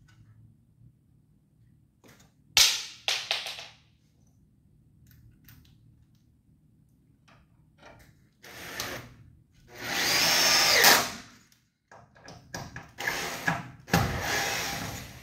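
Cordless drill/driver driving self-drilling countersunk screws through a stretch-ceiling profile, in several bursts. A short burst comes about two and a half seconds in. A longer run around ten seconds is the loudest, its motor pitch rising and falling, and a few shorter bursts follow near the end.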